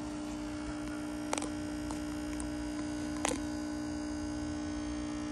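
Eico HF-81 tube amplifier giving a loud, steady mains hum from its power transformer and speakers, with two brief clicks about a second and three seconds in. The hum comes from a wiring fault in the original kit build: one of the two rectifier tubes and the first filter capacitor were left unconnected.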